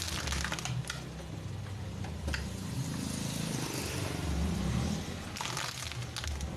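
Car engine running at low speed, with a few short sharp crackles and a brief scraping noise near the end.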